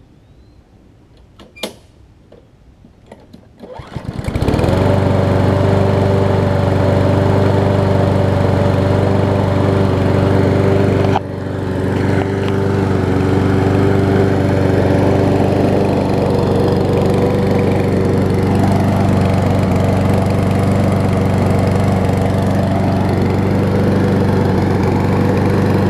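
Kohler XT7 Courage single-cylinder engine on a push mower, pull-started warm: it catches about four seconds in and then runs at a steady speed. A single sharp click comes before the start.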